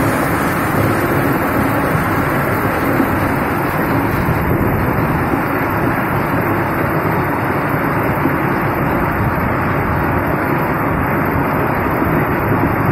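Heavy rain mixed with hail falling, a dense, steady rush of noise.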